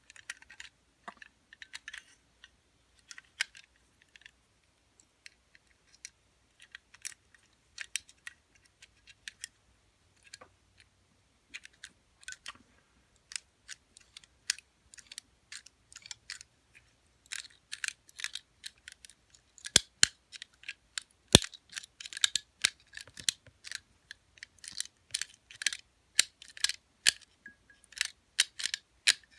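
A homemade wire pick and tension tool working the levers inside an Abus 50 mm lever lock, making scattered small metallic clicks. The clicks are sparse at first and come much more often from a little past halfway, with one sharper click about two-thirds of the way in.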